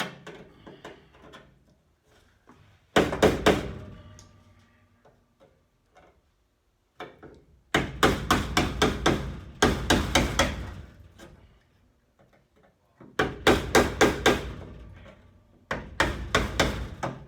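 A hammer striking car body sheet metal in five quick bursts of several blows each, knocking loose the outer layer being cut and peeled off the frame rails.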